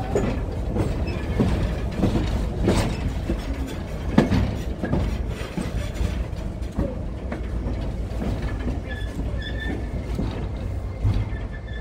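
Passenger train cars rolling on the rails, heard from on board: a steady low rumble with scattered knocks from the wheels and couplings, and a few thin wheel squeals near the end.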